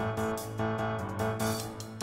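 Background music with keyboard or piano-like notes.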